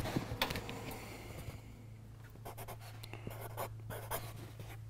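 Pen scratching on a paper envelope in short strokes, with a few light clicks, over a steady low hum.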